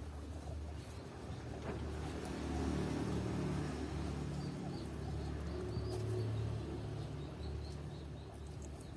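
Doves cooing in low repeated notes, with small birds chirping faintly and rapidly in the second half.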